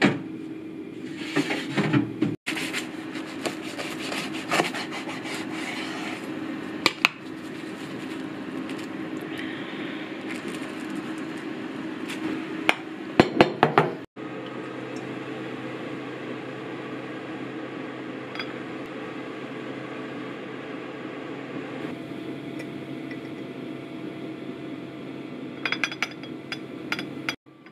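Kitchen handling sounds: scattered clinks and knocks of glass jars and utensils. Among them are a cluster of sharp clicks from the metal wire clasp of a clip-top glass jar being opened, and near the end chopsticks tapping a small glass bowl. A steady low hum runs underneath.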